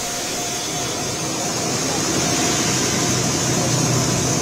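Traffic on a rain-flooded street: a steady hiss of rain and wet road noise, with a heavy vehicle's engine growing louder from about two seconds in.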